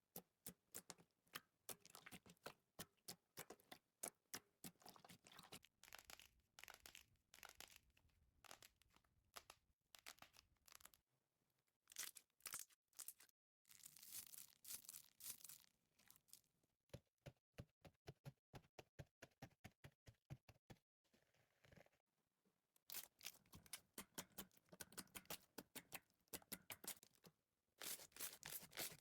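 Slime being squeezed and worked by hand: faint, fast runs of crackling clicks and pops, pausing briefly twice.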